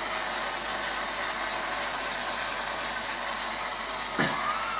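Whipped-cream aerosol can spraying with a steady hiss as the cream streams out, with a brief sound rising in pitch near the end.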